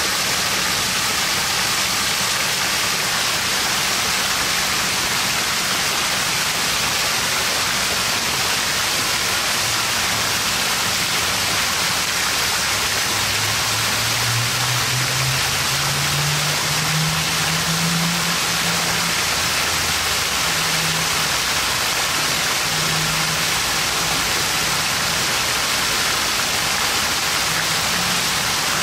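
Steady rush and splash of water pouring in a curtain from the rim of a mushroom-shaped splash-pad fountain. A low hum rises in pitch about halfway through and then comes and goes under the splashing.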